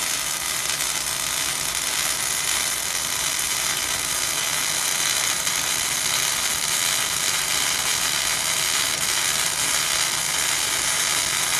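Wire-feed welding arc burning without a break as a fillet bead is run: a continuous, even crackling hiss.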